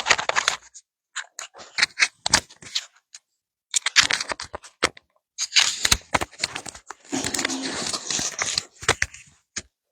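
Handling noise: irregular clicks and crinkling rustles, with a longer stretch of rustling about seven seconds in, stopping just before the end.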